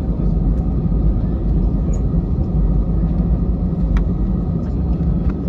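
Cabin noise of an Airbus A320-214 taxiing, heard from inside the cabin: a steady low rumble from its CFM56 engines at taxi power and the wheels rolling over the taxiway.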